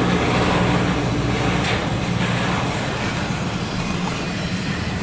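Norfolk Southern intermodal freight train rolling past, a steady rumble of its cars' wheels on the rails. A low steady hum under it fades out about two seconds in.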